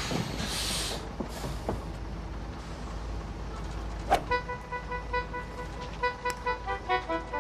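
Single-decker bus engine idling with a low steady rumble, with two short hisses of air in the first second. A little after four seconds in, light staccato music starts over it.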